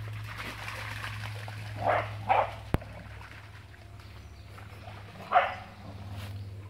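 Springer spaniel barking: two short barks in quick succession about two seconds in, and one more a few seconds later.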